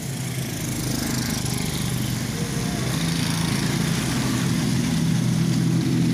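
A small motorcycle engine running steadily close by, its note rising a little about halfway through, over the hiss of tyres on a wet road.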